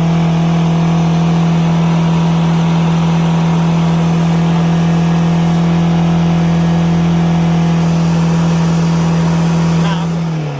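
Ford Figo turbo engine held at a steady raised rpm for about ten seconds, then let back down toward idle near the end. It is being revved continuously during a carbon-cleaning treatment to blow out carbon deposits.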